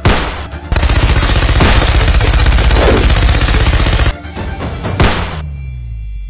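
Gunfire: a single shot at the start, then a long burst of rapid machine-gun fire lasting about three seconds, and another single shot about five seconds in, with background music underneath.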